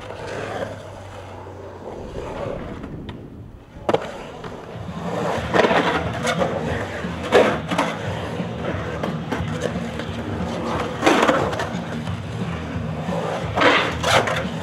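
Skateboard riding concrete bowl and pool walls: a steady wheel rumble broken by several sharp clacks and scrapes as the board and its metal trucks hit and grind the edges.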